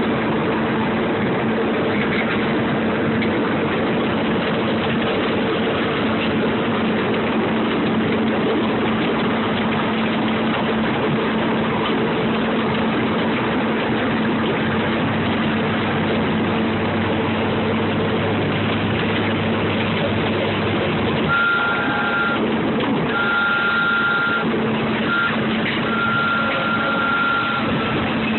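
Open-air ride-on train running steadily, its engine humming under a constant rushing of motion and wind noise. Near the end a high steady tone sounds on and off several times.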